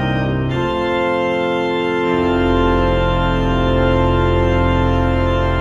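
Church organ playing sustained chords. The chord changes about half a second in and again about two seconds in, where a deep bass note comes in, and the closing chord is then held.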